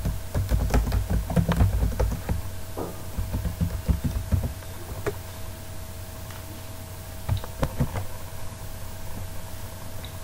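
Typing on a computer keyboard: a quick run of keystrokes over the first four or five seconds, then a few more key clicks about seven to eight seconds in, over a steady low hum.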